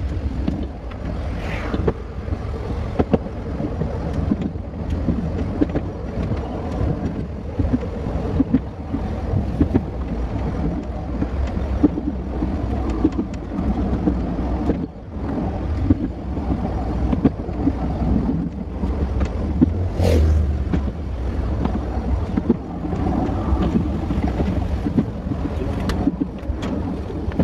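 Rail vehicle running along narrow-gauge track: a steady low rumble with frequent short clicks, and wind on the microphone. One sharper knock about twenty seconds in.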